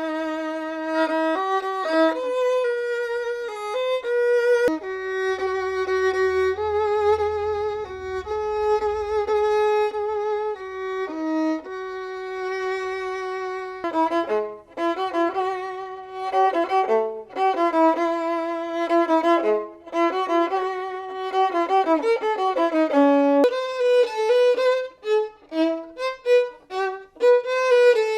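Solo violin playing a melody, bowed. Long held notes give way to shorter, detached notes about halfway through, with clean breaks about 5 and 14 seconds in where the playing restarts.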